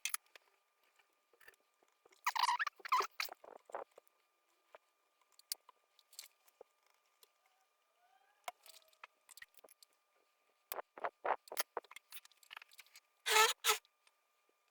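Short scraping strokes and clicks of small hand metalwork, as the pins of a replacement dual diode pack are shaved down to fit the circuit board's holes. A cluster of louder strokes comes a few seconds in, and a run of quick strokes, then a louder burst, near the end.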